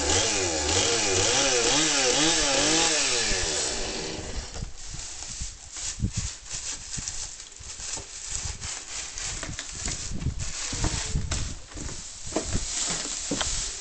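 Chainsaw cutting into a straw bale, its engine pitch rising and falling over and over, then dropping out about four seconds in. After that come irregular soft knocks and rustles.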